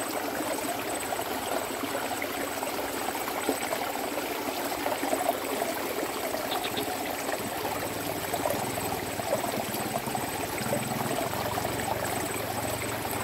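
Small stream water running and trickling steadily. A faint low hum comes in about three-quarters of the way through.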